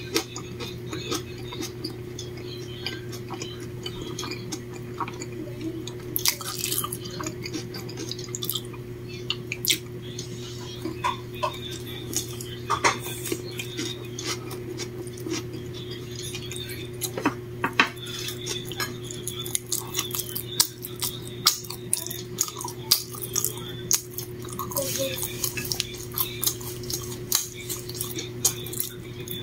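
Cutlery and dishes clinking: scattered light clicks and taps that become more frequent in the second half, over a steady low hum.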